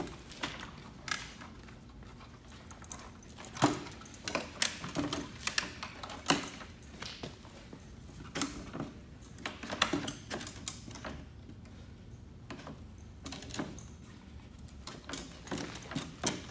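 Milwaukee M18 Rocket tower light being unfolded by hand: irregular plastic and metal clicks and knocks as its legs swing out, latches snap and the mast is drawn up.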